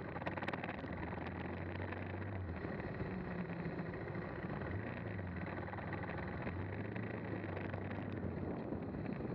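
KTM 390 Adventure's single-cylinder engine running at low road speed, a low, fairly steady engine note, heard over the rumble of tyres and wind.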